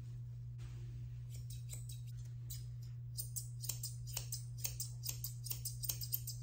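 Grooming shears snipping through a Bichon Frise puppy's coat in short, quick cuts, faint at first, then louder and faster from about halfway through, at about four to five snips a second near the end.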